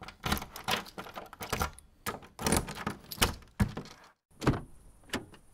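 A run of sharp knocks and clicks, irregular and roughly two a second, each with a short ringing tail. A faint high hiss comes in near the end.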